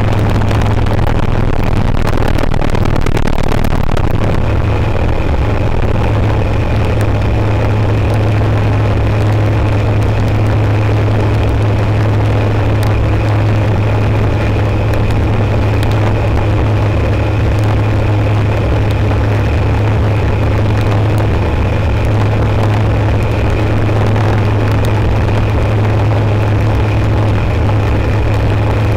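Aeroprakt A22LS Foxbat's Rotax 912 ULS flat-four engine and propeller running at take-off and climb power, heard from inside the cockpit as a loud, steady low drone. A thin high tone joins about five seconds in.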